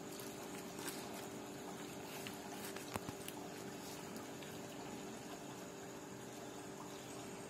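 A steady low hum and hiss, with a few faint clicks about one and three seconds in.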